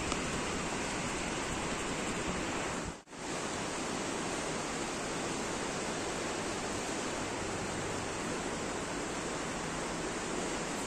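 Steady rushing wind noise, an even hiss with no distinct events, dropping out suddenly for a moment about three seconds in.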